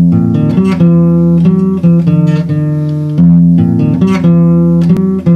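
Acoustic guitar strummed, playing chords that are struck afresh every second or so and left ringing between strokes.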